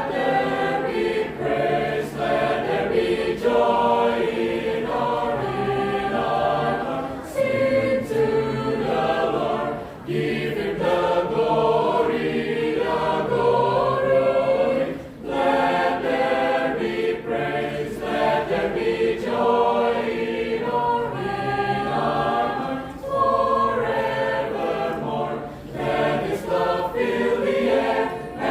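Church choir singing in harmony, several voice parts together in flowing phrases, with brief breaks between phrases about ten and fifteen seconds in.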